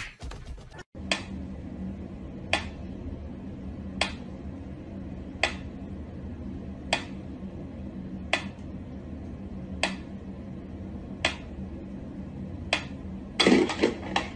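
Pyramid-shaped mechanical pendulum metronome ticking slowly and evenly, about one tick every one and a half seconds, over a steady low hum. Near the end a short, louder, noisy burst sounds as the cat leaps.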